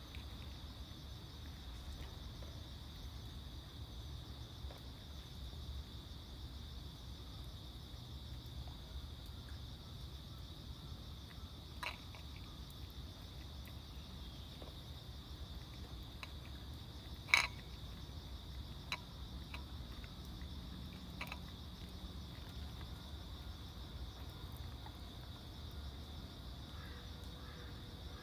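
Night insects singing in a steady, high-pitched chorus over a low background rumble, broken by a few short sharp clicks, the loudest about seventeen seconds in.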